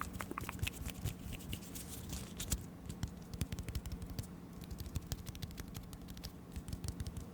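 Close-miked ASMR trigger sounds: a dense, irregular run of soft clicks and crackles, over a faint steady low hum.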